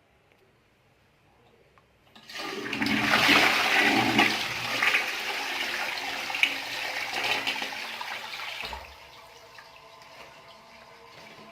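Toilet flushing: a sudden loud rush of water starting about two seconds in and lasting some six seconds, then dropping to a quieter steady running of water as the cistern refills.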